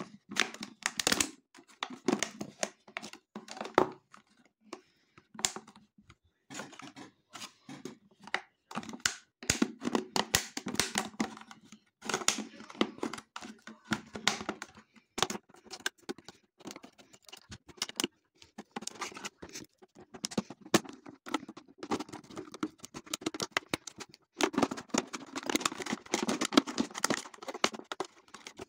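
Close-up crinkling and tearing noises, dense irregular crackles and clicks coming in clusters with short pauses between them.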